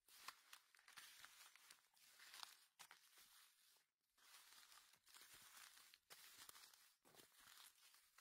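Faint rustling and crinkling of a hand handling chanterelle mushrooms in a wicker basket, in short irregular scratches that stop briefly about four seconds in and again near seven seconds.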